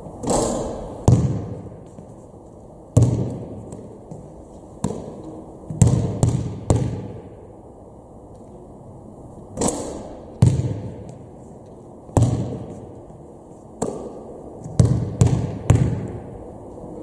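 Basketball impacts in a large gym hall: about fourteen sharp thuds of the ball bouncing and striking, each with an echoing tail, coming singly and in quick clusters of two or three.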